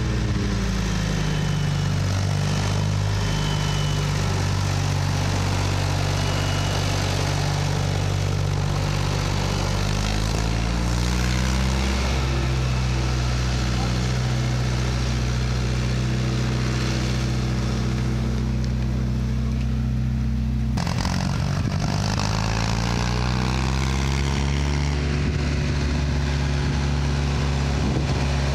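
1967 Ford 2000 tractor's three-cylinder engine running as the tractor is driven. The engine speeds up about ten seconds in, changes abruptly a little past twenty seconds, and speeds up again a few seconds later.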